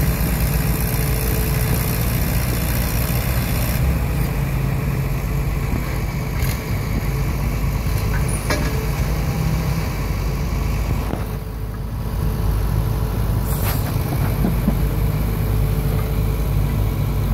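Farm tractor engines running steadily: an Allis-Chalmers D14's four-cylinder engine working with the weight sled hitched, and the sled's tow tractor running behind it. The sound eases briefly a little past the middle.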